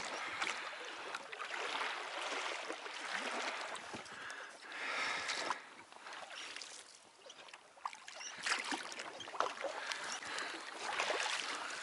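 Water splashing and lapping around an inflatable rubber boat as it is rowed, the oars dipping into the water. From about two-thirds of the way in come a run of small irregular knocks and splashes.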